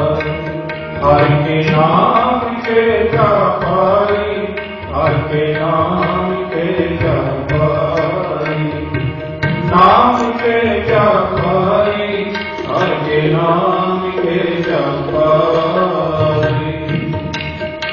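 Sikh devotional music: voices chanting a naam simran over a held drone and instrumental accompaniment, in repeated phrases.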